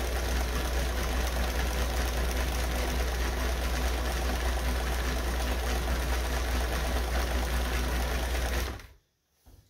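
Kenmore 158.950 zigzag sewing machine running steadily at speed, its motor humming under the fast patter of needle and feed as it sews a decorative stitch from a double-sided pattern cam, the fabric backing up every now and then. The machine stops abruptly near the end.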